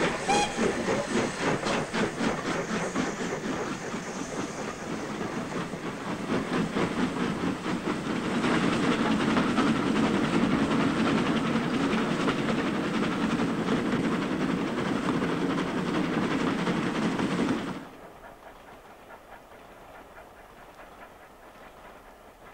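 Steam locomotive on the move, its exhaust beating in a rapid, even rhythm. About eight seconds in this gives way to a denser, louder running noise, which cuts off suddenly near eighteen seconds, leaving a faint hiss.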